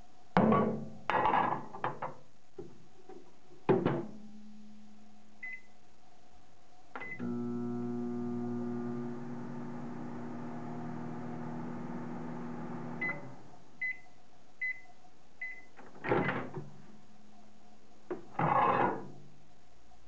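Panasonic microwave oven in use. Door and dish clunks come first, then two keypad beeps and about six seconds of steady running hum. Four end-of-cycle beeps follow, and more door clunks come near the end as it is opened.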